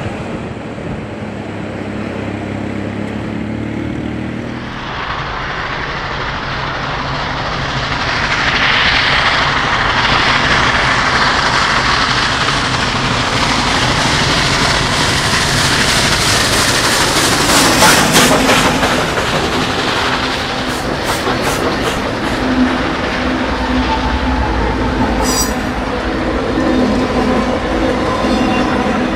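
Union Pacific steam locomotives, Big Boy 4014 (a 4-8-8-4 articulated) leading and 844 behind it, approach and pass at work. The sound builds from about five seconds in and is loudest around eighteen seconds. The trailing diesel units and passenger cars then roll by with wheels clicking over the rails and a brief high squeal about twenty-five seconds in.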